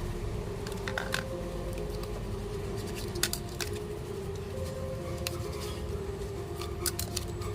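Irregular small clicks and taps, as of tools and small parts being handled, over a faint steady hum.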